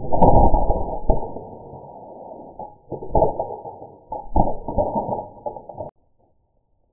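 Spring-loaded mousetrap snapping shut on cheese and bouncing on carpet, heard slowed down with the slow-motion footage: deep, drawn-out thuds, the loudest right at the start, with more about three and four and a half seconds in. It cuts off suddenly near the end.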